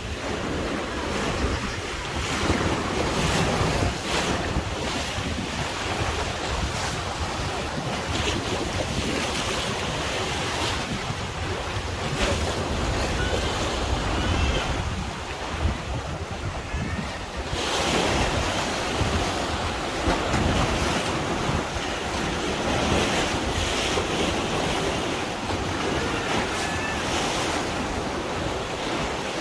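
Heavy, storm-driven surf: choppy waves breaking and washing in, in surging swells, with wind buffeting the microphone.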